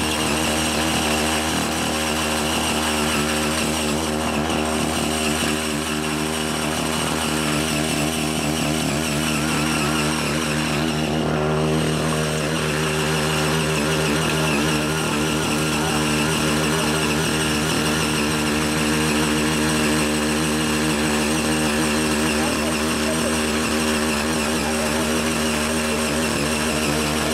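Ching Yee CY80 mini power tiller's small petrol engine running steadily under load, its rotary tines churning loose red clay.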